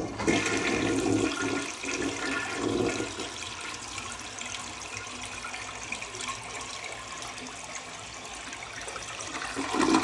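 A 1964 Kohler Cayuga wall-hung toilet flushing. Water rushes loudly through the bowl for the first few seconds, then settles to a steadier, quieter run of water, with a brief swell near the end.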